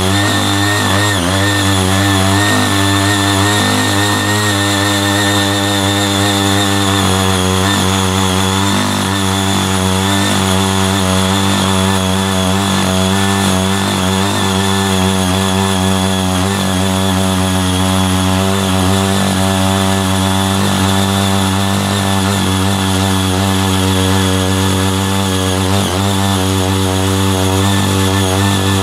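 Small engine of a CY80 mini power tiller running steadily under load while its six rotary tilling blades churn through soil, the engine note wavering slightly as the load changes.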